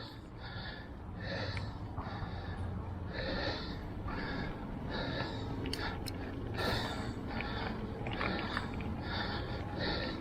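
A person panting hard and rhythmically from the exertion of pedalling a mountain bike uphill in a low gear, at about one and a half breaths a second, over a steady low rumble. A few sharp clicks come about six seconds in.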